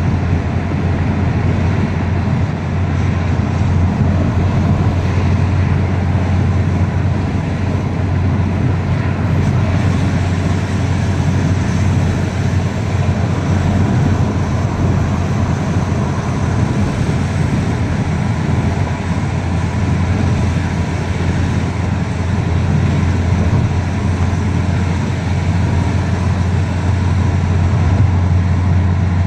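Steady low drone of road and engine noise heard inside a moving car's cabin, with no sudden events.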